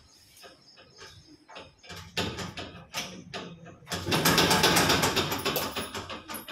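Stainless-steel gate's latch and bolt being worked open, with the gate rattling on its fittings. It starts as scattered metallic clicks and knocks and builds to a loud continuous rattle about four seconds in, then tapers off.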